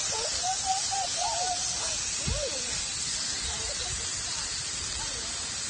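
Meat sizzling on a small grill plate over a portable stove: a steady hiss, with faint wavering calls or voices in the background.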